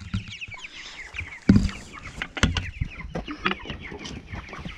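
A flock of four-week-old meat king broiler chicks peeping steadily, many short falling chirps overlapping. A loud knock comes about a second and a half in and a sharp click about a second later.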